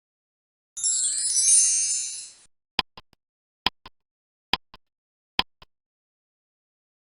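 Electronic intro sound effects: a bright, high shimmering sweep lasting under two seconds, then four short pings about a second apart, each followed by a softer echo.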